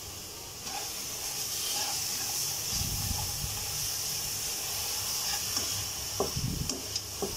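Ginger-garlic paste, green chilli paste and whole spices sizzling in a hot nonstick pan, a steady hiss that gets louder about a second in. Near the end a spatula scrapes and taps against the pan a few times.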